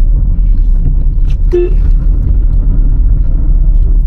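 Steady low rumble of a car being driven, engine and road noise together.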